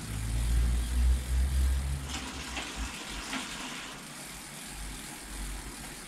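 Low rumble of a bicycle's rear wheel and drivetrain being turned by hand in a repair stand, dying away after about two seconds, with a few faint clicks. The rear hub bearing has some play.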